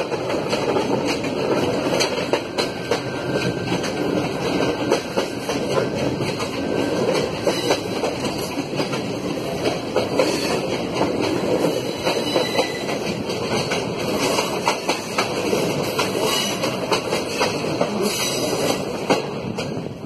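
Passenger coach of a moving train, heard from its open doorway: the wheels clatter irregularly over the rail joints over a steady rushing rumble of the running train.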